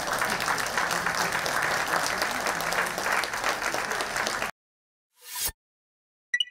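Spectators clapping, steady applause that cuts off abruptly about four and a half seconds in. After a short silence, a brief swoosh sound effect and then a bright ringing ding near the end.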